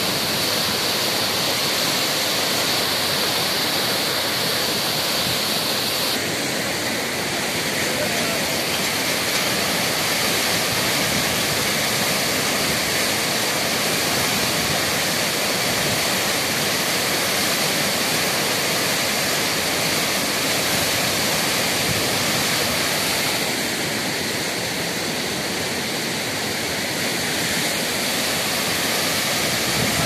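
Fast white-water rapids of the Parvati River rushing over boulders, a loud, steady noise of water.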